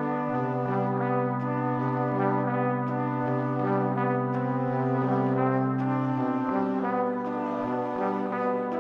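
Slow instrumental music of long held chords that change every second or two.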